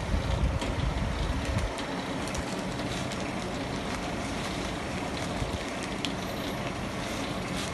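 Continuous band sealing machine running with a steady mechanical hum from its drive motor, chain-driven rollers and cooling fan. A heavier low rumble stops about two seconds in, and light clicks and rustles from a plastic pouch come through.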